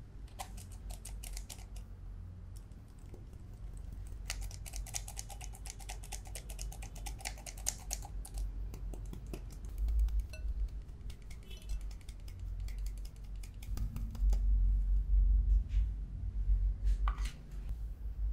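Squeeze-handle metal flour sifter clicking rapidly as cake flour is sifted into a glass bowl, in quick runs of many clicks a second that pause and start again. Near the end there is a single louder knock.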